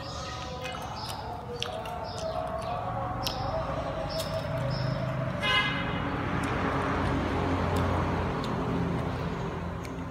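A vehicle horn toots briefly about halfway through, then the noise of a passing vehicle swells and fades. Small mouth clicks and smacks of eating fried chicken wings are scattered throughout.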